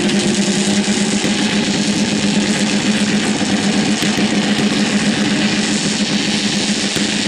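Turbocharged four-stroke racing snowmobiles running at the drag-race start line, a loud, steady engine drone holding one pitch.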